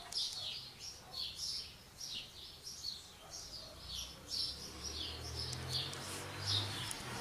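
Small birds chirping, short high calls repeating about twice a second.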